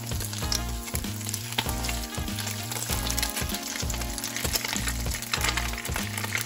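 Slices of tamago egg tofu sizzling as they pan-fry in oil, with a steady crackle and many small spatters. Background music with a bass line plays underneath.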